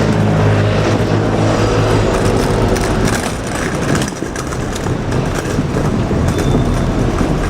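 JR Kyushu 787-series electric train running past, with steady wheel-on-rail noise and many short clicks. A low hum with overtones fades after about two seconds.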